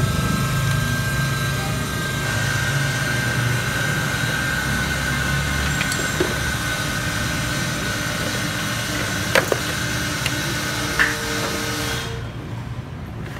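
Steady mechanical running noise, like a motor or engine running nearby, with a few light clicks; it stops about twelve seconds in.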